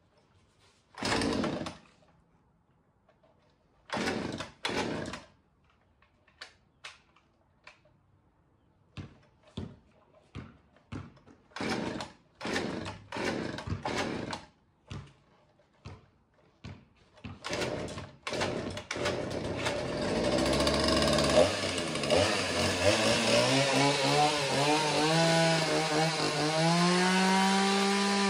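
Gas chainsaw being pull-started: the starter rope is yanked over and over, a few pulls spaced apart and then many quicker ones, without catching. About twenty seconds in the engine fires and keeps running, its pitch climbing near the end. It is a hard, reluctant start.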